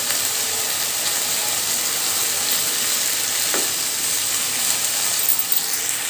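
Cut green beans sizzling in oil in a nonstick kadai while a wooden spatula stirs them: a steady frying hiss with the spatula scraping through, and a few sharper scrapes about five seconds in.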